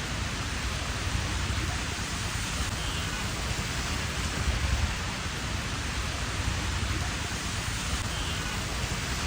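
Steady rain in a thunderstorm: an even hiss, with a low rumble underneath that rises and falls.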